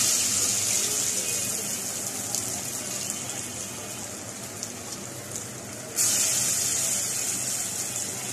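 Piyaju fritters of split-pea and onion batter sizzling as they deep-fry in hot oil. A loud sizzle at the start eases off, then a fresh loud burst comes about six seconds in as another portion of batter goes into the oil, and it eases again.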